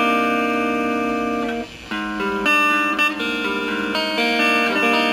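Clean-tone Stratocaster-style electric guitar playing sustained, ringing chords through a Kokko Mini Compressor pedal. The chords change about every second, with a short break about a second and a half in.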